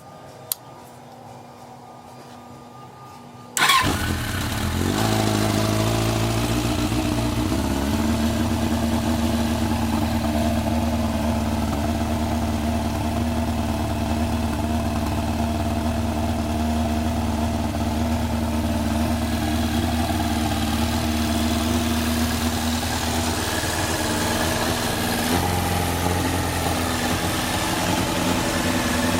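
1985 Suzuki GSX-R750's air-and-oil-cooled inline-four engine starting about three and a half seconds in, after a single click, then settling within a few seconds into a steady idle that shifts slightly near the end.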